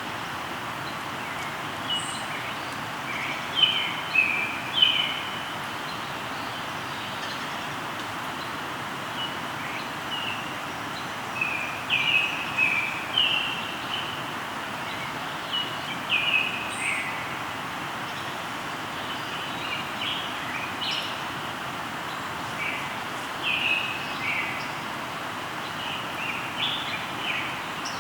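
Songbirds singing in short chirping phrases, in bursts every few seconds, over the steady rush of a flowing river.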